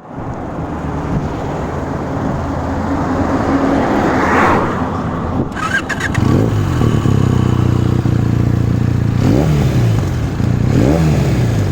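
Benelli TNT 300's parallel-twin engine, breathing through an Akrapovic slip-on exhaust, idling steadily. In the second half the throttle is blipped several times, each a short rev that rises and falls back to idle.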